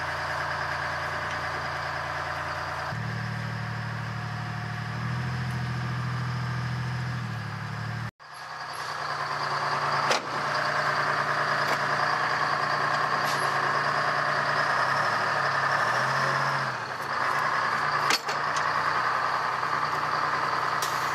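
Heavy military vehicle engine running steadily close by; its low note grows louder about three seconds in. After a sudden break about eight seconds in, a steady engine sound with a strong hiss carries on, with a few sharp clicks.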